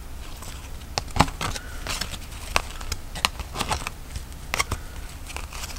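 Trading cards being flipped through by hand: irregular soft clicks and snaps of card stock, about a dozen over a few seconds.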